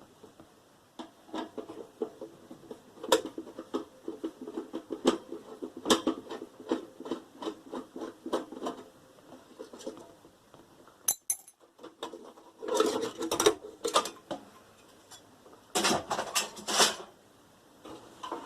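Metal parts of a microwave oven and hand tools clinking, knocking and scraping as it is taken apart: runs of quick light knocks, then two denser, louder bursts of clatter in the second half.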